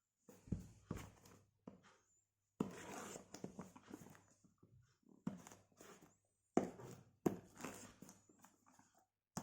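A phone's retail box being opened and its packaging handled: scattered taps and clicks, with two longer stretches of rustling about a third of the way in and again past the middle.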